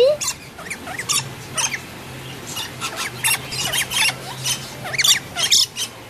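Lorikeets feeding at a hand-held nectar cup, giving a string of short, shrill squeaks and chatters at irregular intervals.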